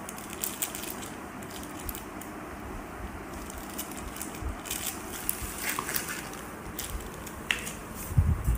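Clear plastic bag crinkling and crackling in irregular bursts as a packaged replacement HEPA filter is handled, with a dull thump near the end.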